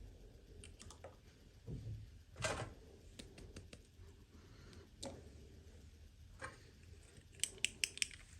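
Hands handling small plastic toys and their packaging: scattered light taps and short rustles, then a quick run of about five sharp clicks near the end.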